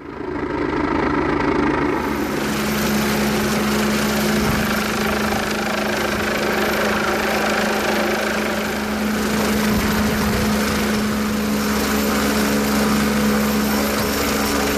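Helicopter hovering nearby: a loud, steady turbine and rotor noise with a constant whine, which comes in suddenly at the start.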